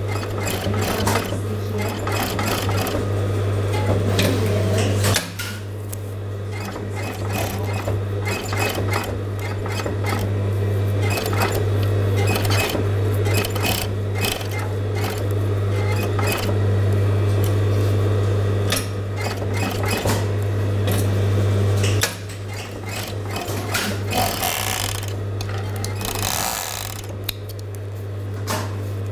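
Juki industrial overlock (serger) machine sewing fabric, with the rapid run of stitching over a steady motor hum. The sound drops back briefly a couple of times.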